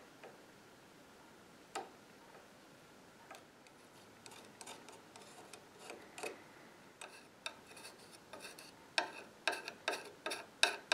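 Faint scattered clicks and light scrapes of a heated burn-in knife's metal tip against wooden molding as melted wax filler is pressed into a crack. They come more often in the second half.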